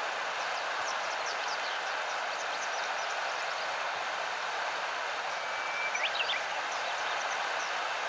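Japanese wagtail singing: scattered short, high, thin notes, then about six seconds in a held whistle that breaks into a quick run of varied notes, over the steady rush of flowing river water.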